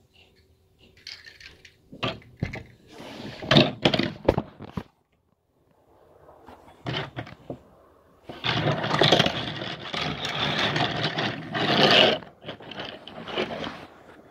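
Scraping and rubbing as die-cast toy cars are handled and pushed on a tabletop. There are scattered bursts in the first few seconds, then one long, rough rubbing noise that lasts about four seconds, past the middle.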